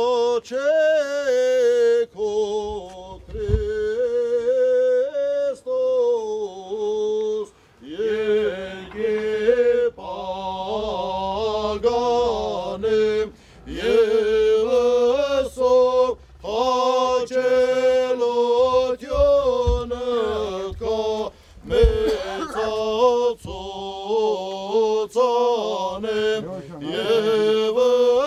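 Armenian Apostolic clergy chanting a liturgical hymn for the consecration of a khachkar (carved stone cross). A male chant in long held, slowly moving notes, with short breaks between phrases.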